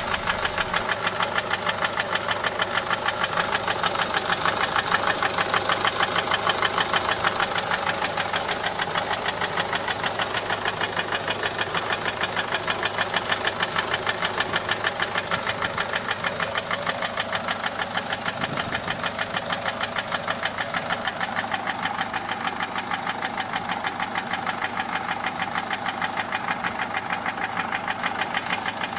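Peugeot 407's 1.6 HDi four-cylinder turbodiesel idling with a steady, evenly spaced ticking knock. The mechanic suspects a worn camshaft or hydraulic tappet more than an injector.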